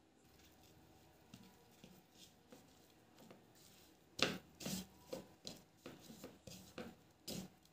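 Fingers rubbing and pressing spice powder onto pieces of eel on a plate: faint rubbing at first, then from about four seconds in a run of short scratchy taps, about three a second, the first the loudest.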